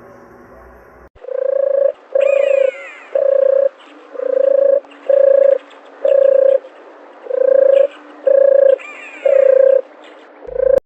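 Dove cooing: a steady run of about ten short coos on one pitch, starting about a second in. Faint falling chirps from another bird come twice.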